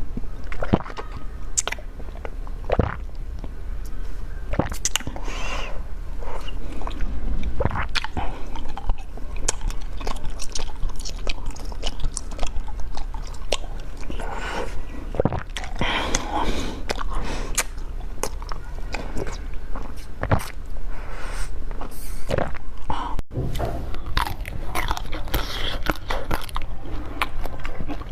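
Close-miked eating sounds: repeated bites and crunchy chewing of desserts, with many sharp clicks and short crunches.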